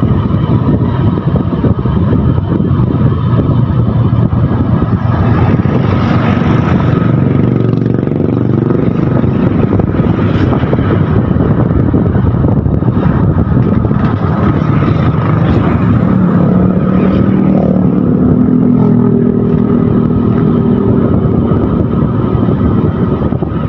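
Motorcycle riding along a road: the engine running under heavy wind rush on the microphone, its pitch shifting up and down with speed.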